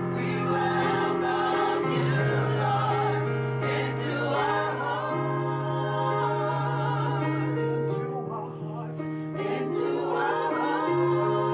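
Gospel vocal group singing in harmony, with sustained chords held over a bass note and a melody line moving above.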